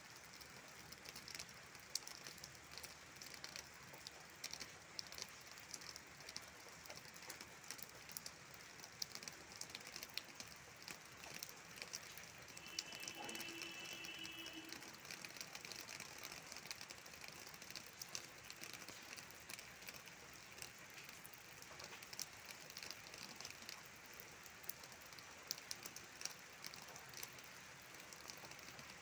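Steady light rain falling on leaves, with many separate drop ticks. A brief steady tone sounds faintly about halfway through.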